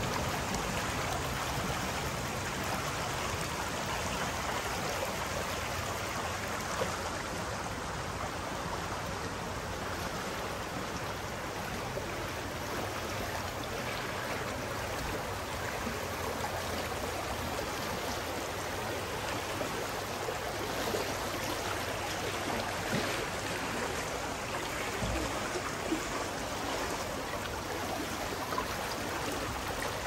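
Shallow, clear spring-fed stream babbling steadily as it runs over stones and washes around stepping stones.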